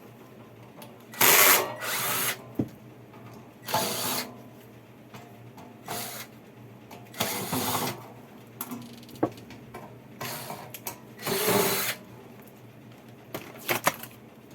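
Handheld power driver running in short bursts, about eight of them spread out, backing out the screws of a public-address amplifier's case to open it.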